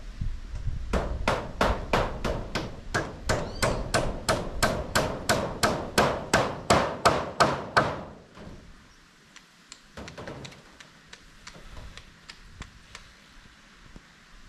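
Hammer nailing down metal roof cladding: a quick, even run of about two dozen ringing strikes that stops about eight seconds in, followed by a few faint scattered taps.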